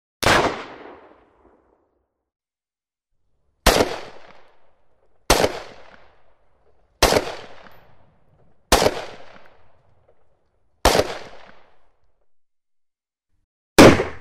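Single shots from a Glock 17 9mm pistol, seven in all, fired one at a time at uneven gaps of about two seconds. Each is a sharp bang with a short echoing tail, and there is dead silence between shots.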